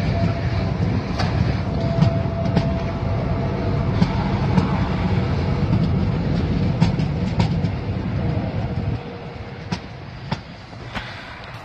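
Tyne and Wear Metro train running close past the platform: a steady low rumble of wheels and motors with scattered sharp clicks of wheels over the rails. The rumble falls away about nine seconds in, leaving only the occasional click.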